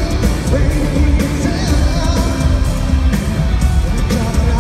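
Live pop dance track played loud through the concert sound system, a man singing over a heavy bass beat, with long held notes in the middle.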